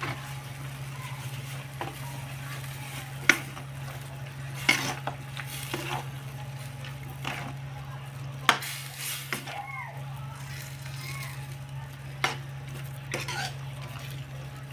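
A spatula stirring a wok of soup with noodles and seafood, knocking sharply against the pan several times at uneven intervals, over a steady low hum.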